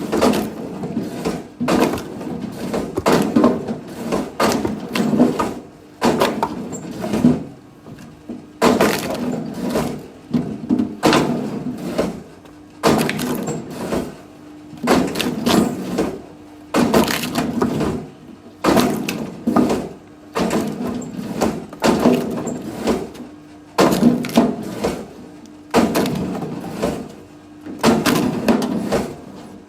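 Firewood being split: a sharp wooden crack with splintering about every two seconds, repeated steadily.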